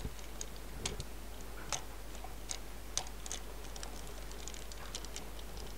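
Faint, irregular small plastic clicks and taps as a hammer-drill attachment is pushed and turned onto the arm of a plastic toy excavator by hand.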